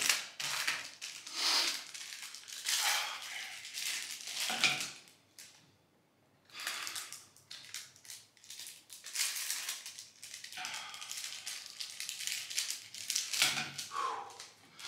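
Crinkling and tearing of Paqui chip packets as they are opened by hand, in irregular bursts with a short lull about six seconds in.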